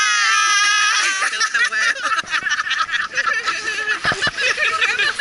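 A woman's long, high-pitched squeal that is held and breaks off about a second in, followed by several women laughing and chattering together.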